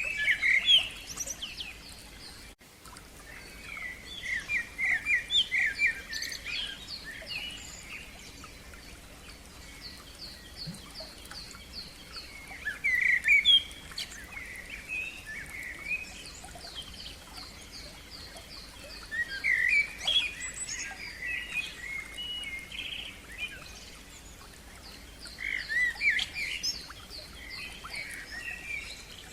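Songbirds singing: loud, warbling phrases come every six or seven seconds, with runs of rapid, repeated high notes in between.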